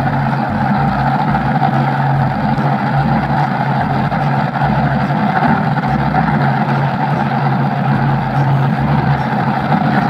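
Engine sound effect for the toy truck: a loud, steady motor drone with a constant low hum, holding one even speed throughout.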